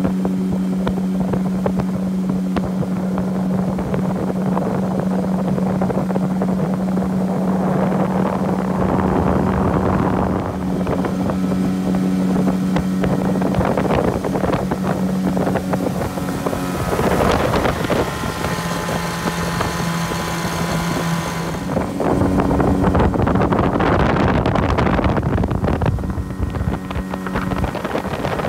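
Motorboat engine running steadily at speed, a constant low drone over the rush of wind and water past the hull. The engine note dips lower for a few seconds past the middle, then comes back up.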